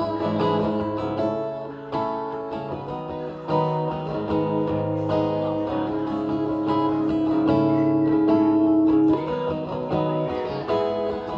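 Instrumental break of a live pop song, with no singing: steady strummed guitar chords changing every second or two.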